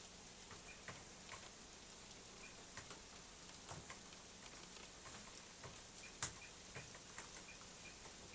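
Faint, irregular light clicks over a steady hiss, with one sharper click about six seconds in and a few very short high beeps.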